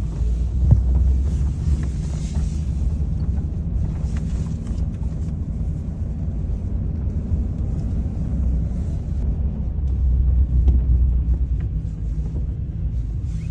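Motor vehicle engine running: a steady low rumble, swelling slightly near the end.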